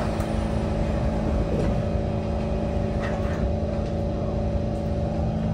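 Steady hum inside a Kawasaki C151 MRT train car as its doors slide shut, with a short knock about three seconds in as they close.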